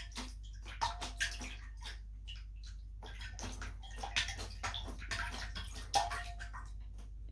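Maine Coon kitten pawing and splashing at water in its bowl: irregular splashes and drips, with a short lull a little before halfway.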